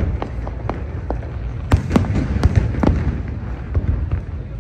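Aerial fireworks going off in a rapid string of sharp pops and bangs over a continuous low rumble, thickest around two to three seconds in.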